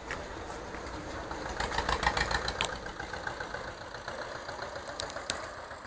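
Vintage tractor engine running slowly with an even chugging beat as it pulls a loaded passenger trailer past. It is loudest about two seconds in.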